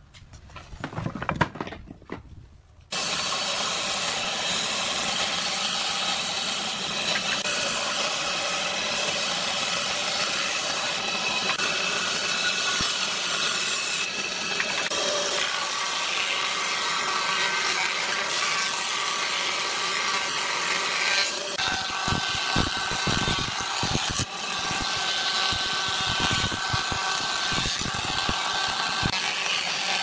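Wooden boards knock as they are handled on a bench, then woodworking machines run steadily: a table saw ripping boards into thin strips, and later a thickness planer feeding a board through. Sharp knocks sound over the machine in the last several seconds.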